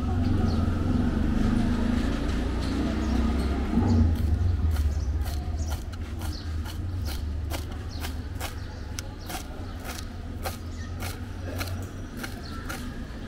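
Kitchen knife chopping fresh coriander leaves on a wooden board: quick, sharp, repeated chops at about three a second, mostly from about five seconds in. A low rumble of passing traffic is loudest in the first few seconds and then fades.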